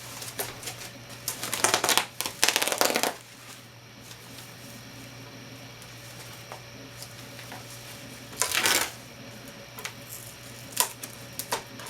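Packaging being handled during an unboxing: a few short rustling, scraping bursts, then some light clicks and knocks.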